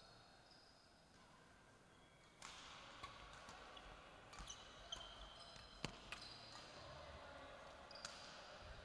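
Badminton play on an indoor court: from about two and a half seconds in, shoes squeak briefly on the court floor and a racket strikes the shuttlecock several times with sharp clicks, one louder hit about six seconds in.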